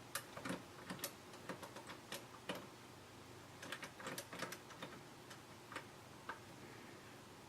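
Faint clicking of the three combination dials on a SnapSafe lock box being turned to the code, each detent a small sharp click. The clicks come in irregular runs, thick for the first few seconds and sparser toward the end.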